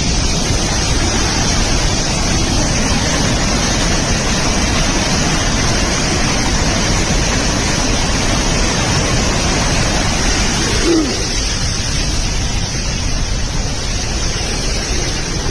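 Heavy flow of floodwater rushing through a lake's opened floodgates and spillway: a loud, steady rush of water that eases slightly about three-quarters of the way through.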